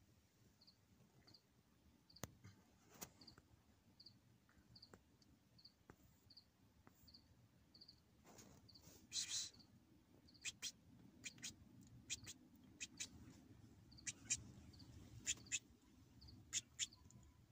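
Near silence with a faint, regular high chirp repeating about one and a half times a second, and scattered sharp clicks and short rustles in the second half, the loudest about nine seconds in.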